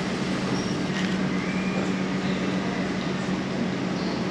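Los Angeles Metro subway train in an underground station, a steady rumble with a constant low hum and a faint brief whine about two seconds in.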